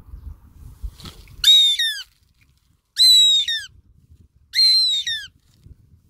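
Goshawk calling: three loud, shrill calls about a second and a half apart, each a quick run of short notes that drop in pitch.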